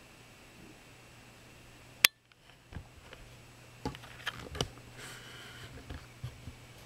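Handling noises: one sharp click about two seconds in, then several lighter clicks and taps, over a faint steady hum.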